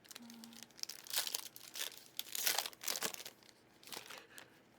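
Foil wrapper of a trading-card pack being torn and crinkled, in several bursts of rustling, the loudest about halfway through.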